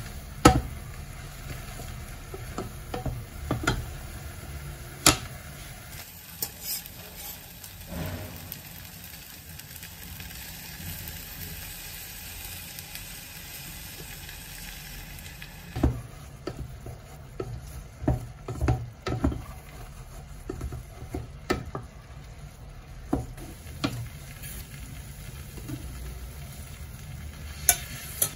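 A wooden spatula stirring risotto rice in a stainless steel saucepan over the heat, the rice sizzling, with frequent sharp knocks and scrapes of the spatula against the pan.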